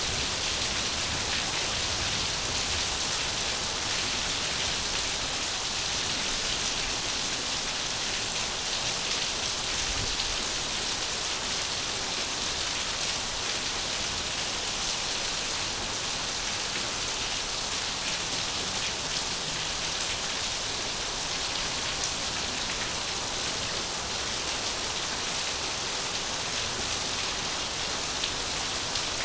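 Steady rain falling on a surface: a continuous, even hiss of many drops, unchanging throughout.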